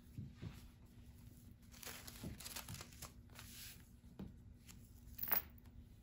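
Paper being handled and laid down: scattered soft rustles and crinkles with a few light taps on the table, the loudest crinkle shortly before the end.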